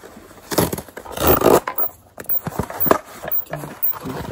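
Packaging of a microphone clip being handled and opened: irregular rustling and scraping with several sharp clicks, loudest in a half-second burst a little over a second in.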